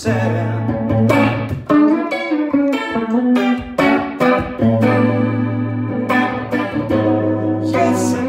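Stratocaster-style electric guitar playing a run of single notes and short phrases over a held low note, pausing briefly twice.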